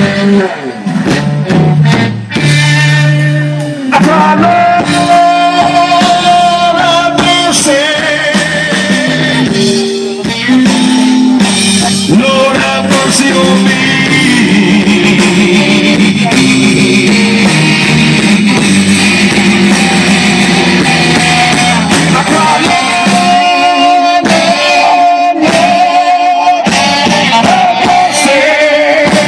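Live blues band playing: guitar and drums with a singing voice.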